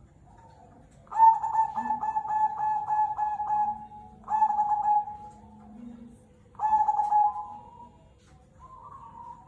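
Zebra dove (perkutut) of the black cemani type cooing: three phrases, each a quick string of notes ending in a drawn-out coo. The first is the longest, at about three seconds, and the other two are shorter, each beginning with a sharp attack. Softer cooing follows near the end.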